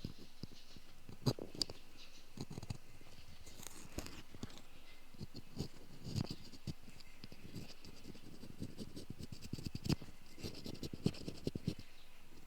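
Bamboo ear pick scraping inside an ear canal: irregular soft scratches and small clicks.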